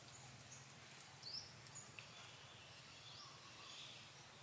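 Faint forest ambience: a few scattered short, rising bird chirps over a steady high-pitched whine.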